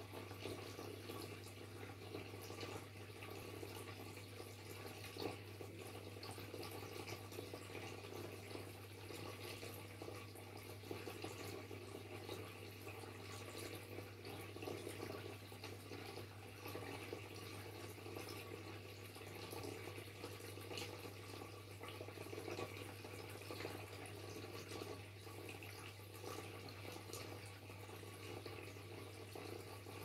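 Waterfall: a faint, steady rush and splash of falling water, with a steady low hum beneath it.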